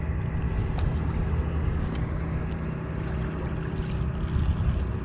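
A fishing boat's engine running steadily, a low constant hum.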